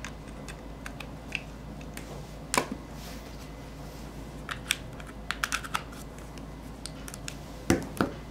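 Handling sounds from a plastic LED lamp base and its USB cable: scattered sharp clicks and taps as the plugs are pushed in and things are set down on the table, with a quick run of clicks mid-way and two louder knocks near the end.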